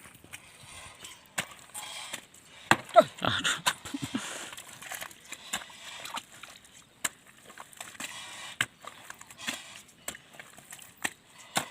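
Scattered knocks and clunks from a hand tractor stuck in paddy mud being worked loose by hand, its engine off, with a denser burst of loud knocks about three seconds in.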